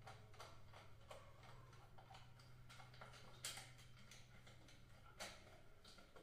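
Faint, scattered clicks and light taps of power-contactor contact parts and plastic housing being handled and fitted by hand, with two slightly sharper clicks in the second half, over a low steady hum.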